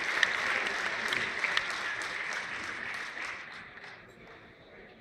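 Audience applauding, the clapping thinning and dying away over the last two seconds.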